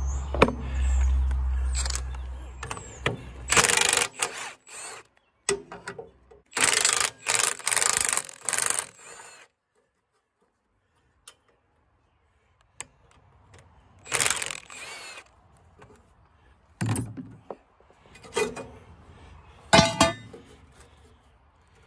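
Cordless power driver running in short bursts, spinning nuts off the cylinder-head shroud of a Wisconsin engine, with metal clinks between bursts. There is a silent break about ten seconds in.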